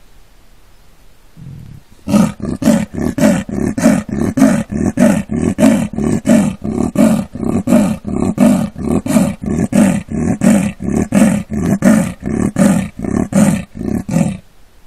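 Male Amur leopard giving its territorial call, the sawing call: a long series of harsh, even strokes at about two a second. It starts about two seconds in, after a soft low lead-in sound, and stops shortly before the end.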